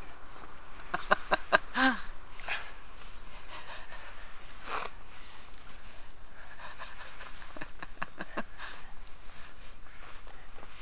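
Newfoundland dog sniffing and breathing close up, with short clicks, a brief pitched sound about two seconds in and a breathy puff about halfway through.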